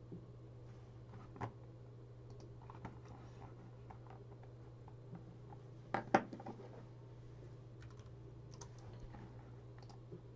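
Faint, scattered clicks of a computer keyboard over a steady low hum, with a louder pair of knocks about six seconds in.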